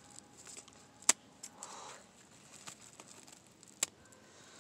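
Scissors snipping through a hen's wing feathers: a few sharp clips, the loudest about a second in and another near the end, with a soft rustle of feathers being handled in between.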